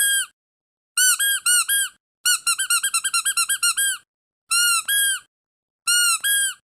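Rubber squeaky dog toy squeezed again and again, each squeeze giving a high, pitched squeak. The squeaks come in short groups with silent gaps between them: a few single squeaks, then a fast run of about fifteen quick squeaks near the middle, then two more pairs.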